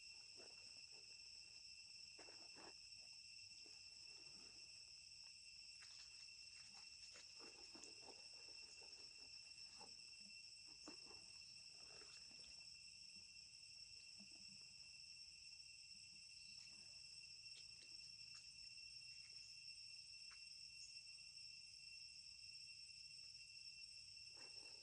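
Faint steady chorus of insects, a continuous high-pitched drone at a few pitches, with scattered soft rustles and taps.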